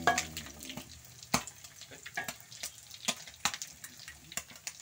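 Pieces of ikan cue (tongkol) frying in hot oil in a wok: a steady sizzle broken by many sharp pops and clicks, with a metal spatula turning the fish in the pan.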